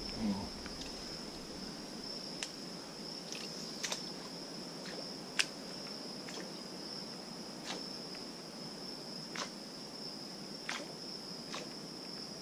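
Insects chirring in a steady high-pitched drone, with a scattering of short sharp clicks every second or two.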